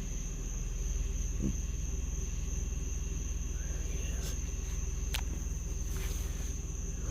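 A steady, even chorus of night insects such as crickets, over a low steady rumble.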